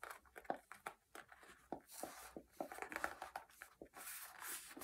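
Faint rustling and soft scattered taps of patterned cardstock being handled, as a folded paper gift box is squeezed at its freshly glued corners.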